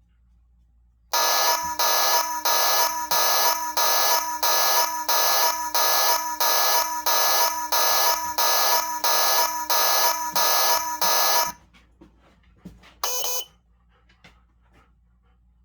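Wink WNK-SIR1 Z-Wave siren sounding a loud pulsing alarm tone, about one and a half beeps a second. It starts about a second in and stops abruptly about eleven seconds in.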